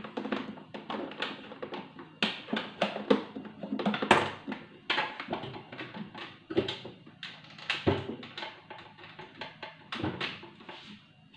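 Irregular plastic clicks, taps and knocks as a countertop blender's jar and lid are handled and fitted onto the base; the motor is not running.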